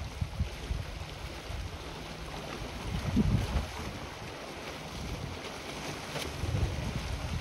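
Wind buffeting a handheld phone's microphone in uneven low gusts, strongest about three seconds in, over a faint steady hiss.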